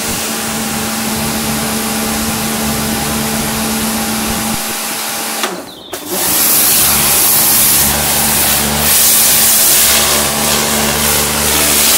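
Kärcher electric pressure washer running with a steady hum, cutting out briefly about five and a half seconds in, then coming back louder with the hiss of the water jet spraying.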